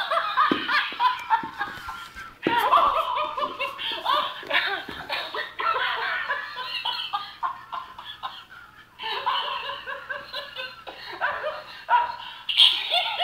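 Plush laughing monkey toy playing its recorded laughter in long bouts. A new bout starts abruptly about two and a half seconds in and another about nine seconds in.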